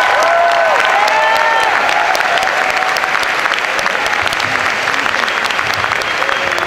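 A large audience applauding, a dense patter of many hands clapping, with voices whooping over it in the first two seconds. The applause eases off slightly toward the end.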